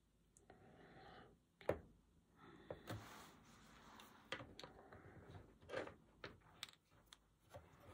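Paint marker dabbing and scratching on a small painted tile: faint scratchy strokes broken by a handful of sharp little clicks and taps.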